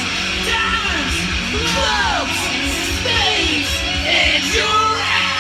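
A hard rock song playing from a vinyl record on a turntable, with singing and sliding, bending pitches over a steady full band.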